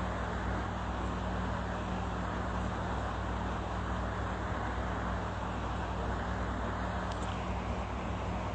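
Steady background noise: a low electrical hum under an even hiss.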